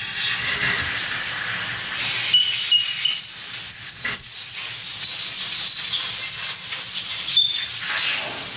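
Compressed-air blow gun hissing steadily as air is blasted through the bolt holes and crevices of a bare Nissan VG30 engine block to clean and dry it. From about two seconds in, high whistling tones come and go, each held briefly and jumping between pitches.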